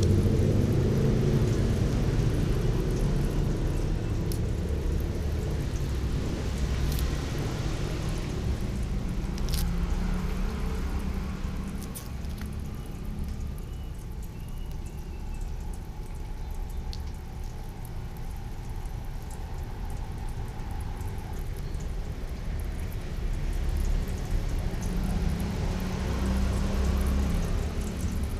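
Chopped garlic frying in a little oil in a large steel wok: a soft sizzle over a steady low rumble, with a few light taps of a knife against the pan.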